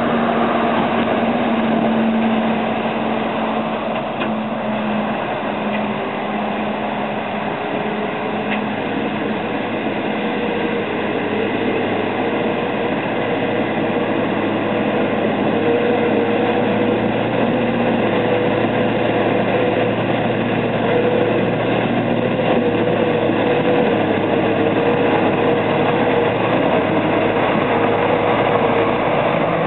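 Heavy dump truck's diesel engine running steadily as the truck drives through deep mud ruts.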